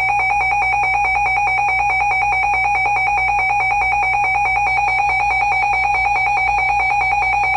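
Emergency Alert System attention signal: a loud, steady electronic alert tone with a fast even pulsing, held without a break. It marks the start of an emergency alert, here a severe thunderstorm warning.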